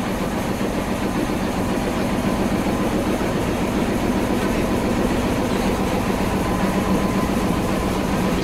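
KTM diesel locomotive's engine idling steadily while the train stands at the platform: a constant, even drone.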